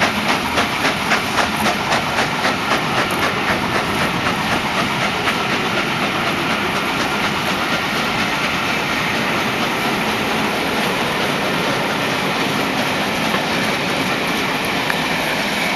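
Steam-hauled passenger train pulling away: the LMS Princess Coronation Class Pacific's exhaust beats, about two to three a second, fade over the first several seconds as the engine draws off. The coaches then roll past with a steady rumble and wheel clatter on the rails.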